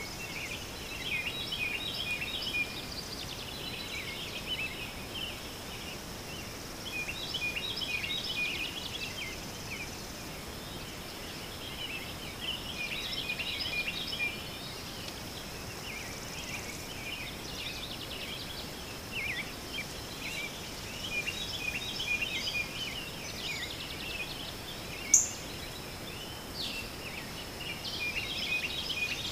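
Birdsong: bursts of quick, high chirping notes about two seconds long, repeating every few seconds over a faint steady high tone. A single sharp click near the end.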